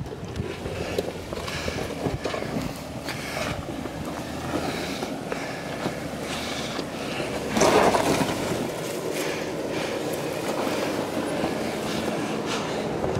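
Off-road 4x4 crawling over rocky trail: engine running low under a rumble of tyres and rocks, with frequent crunches and knocks and a louder crunch about seven and a half seconds in.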